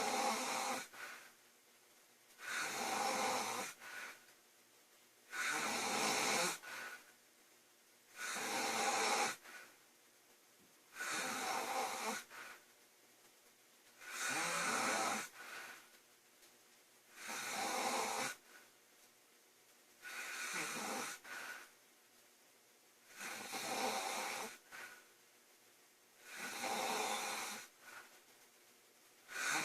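A woman snoring loudly, one snore about every three seconds. Each snore is followed by a short, softer breath.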